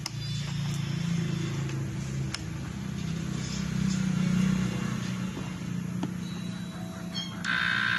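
Electronic tones from a homemade op-amp tone mixer: low steady tones that shift as the knob is turned. About seven and a half seconds in, a higher steady tone with overtones switches on.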